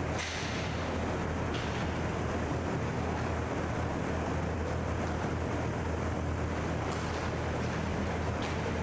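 Steady rumbling rink noise of an inline hockey game, with a constant low hum and a few sharp clacks of sticks and puck on the rink floor scattered through.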